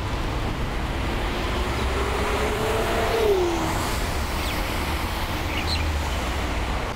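Road traffic going by, with one passing vehicle's hum climbing slowly and then dropping in pitch about three seconds in.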